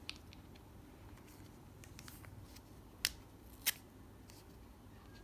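Hands handling small objects: light taps and rustles, with two sharp clicks about three seconds in, the second a little louder.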